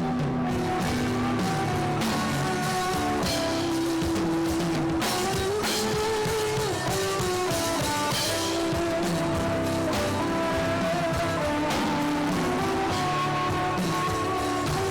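Worship band music: guitar and drum kit playing a steady instrumental passage with held notes.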